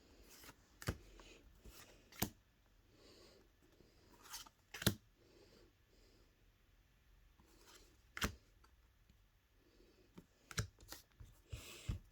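Pokémon trading cards being handled and flicked through one by one, making sharp clicks and snaps a second or several apart, quickening near the end, with faint breathing between.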